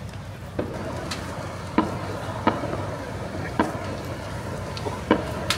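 Fireworks going off in irregular sharp bangs, several seconds apart, over a steady low hum.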